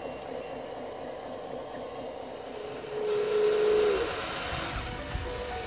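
A small electric motor whining at a steady pitch for about a second, about three seconds in, over a steady background hum.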